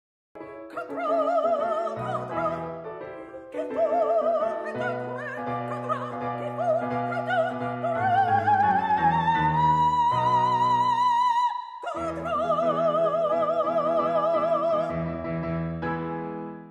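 Spinto soprano singing an operatic line with wide vibrato over piano accompaniment. About eight seconds in, the voice climbs to a long held high note, then breaks off and the singing resumes.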